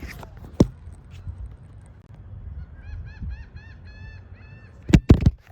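A bird calling a rapid series of about ten short, arched, honking notes over about two seconds, midway through. Loud knocks come at about half a second in and again near the end, over a low rumble.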